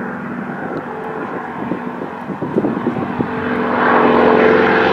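North American AT-6 Texan's nine-cylinder Pratt & Whitney R-1340 radial engine and propeller on a low pass toward the listener: a steady drone that grows louder from about three and a half seconds in as the plane closes.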